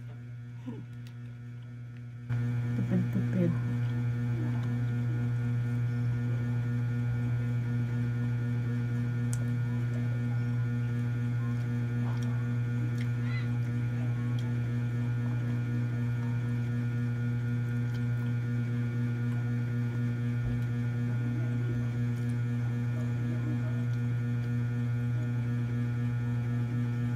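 A steady low electrical hum with many overtones, which jumps louder about two seconds in and then holds steady.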